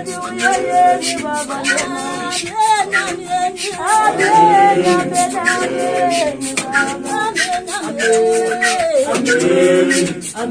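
A group of men and women singing a Zion church song a cappella, several voices together. Their singing is carried over a steady beat of sharp knocks from the dancers.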